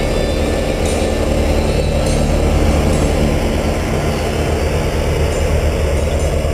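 5.7-litre Hemi V8 engine idling steadily, heard close up in the open engine bay of a Jeep.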